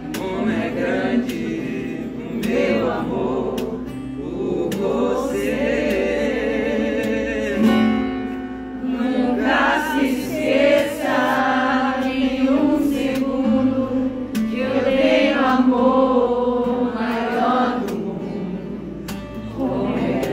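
Live singing with an acoustic guitar, several voices singing together.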